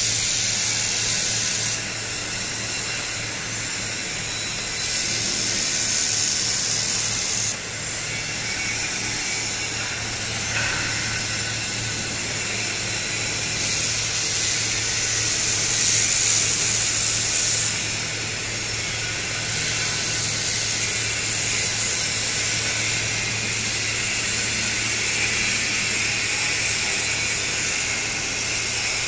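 Handheld laser welder welding steel tube, giving a steady hissing sizzle that jumps louder and softer several times, over a constant low hum.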